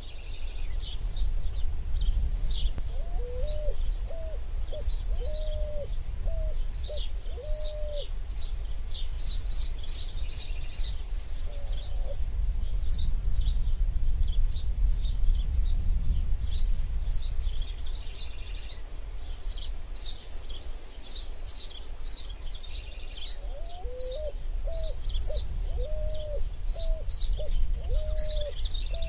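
Birds chirping, many short high calls overlapping, with two runs of lower whistled notes repeated about twice a second, one a few seconds in and one near the end. A steady low rumble sits underneath.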